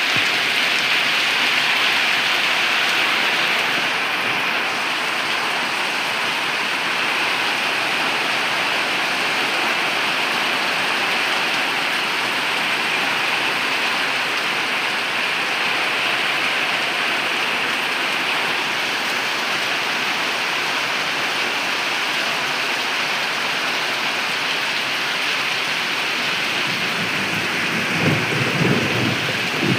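Steady, heavy rain falling, an even hiss throughout, with a low rumble rising in the last few seconds.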